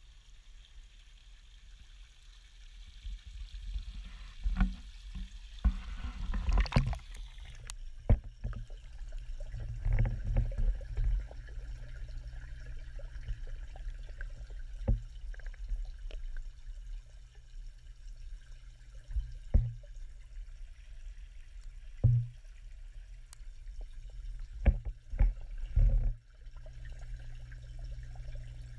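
Water-splashing sound as the camera is dipped into the pond about six or seven seconds in. It is followed by muffled underwater sound: a steady low rumble with scattered knocks and thumps from the camera being handled in the water.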